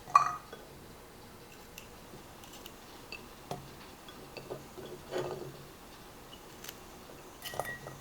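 Kitchenware being handled: a loud clink with a short ring just after the start, then scattered light taps, a brief rattle and a few clicks of containers, lids and utensils.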